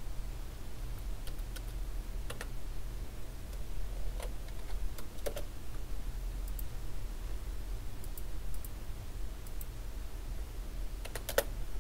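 Scattered computer keystrokes and clicks, with a quick cluster of clicks near the end, over a low steady hum.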